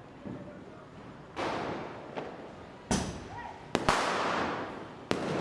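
Diwali firecrackers going off in separate bangs, about six in five seconds. Several leave a long echoing rumble, and the loudest come near the middle.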